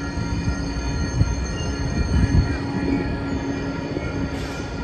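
Coaster passenger train passing through a grade crossing: a steady rumble and clatter of wheels on the rails, with the Siemens Charger SC-44 diesel locomotive going by near the end. The crossing's warning bells ring steadily over it.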